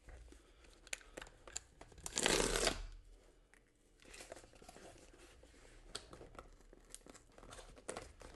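Shipping packaging being torn open and crinkled by hand, with one loud tear about two seconds in, then scattered small clicks and rustling.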